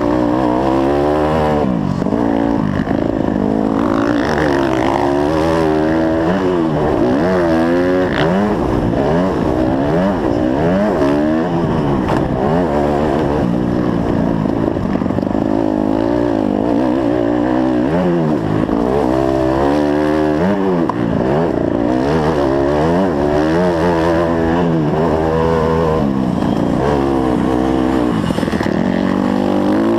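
Dirt bike engine ridden hard on a motocross track, heard close up from the bike itself; its pitch climbs and drops again and again as the throttle is opened and closed.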